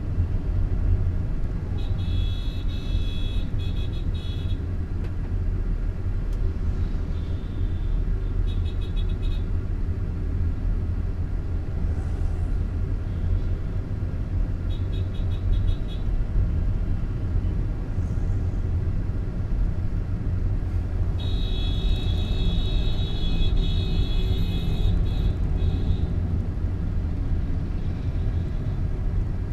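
Car driving in slow traffic heard from inside the cabin: a steady low engine and road rumble. Several times a high, rapidly pulsing buzz cuts in over it, the longest lasting a few seconds about three-quarters of the way through.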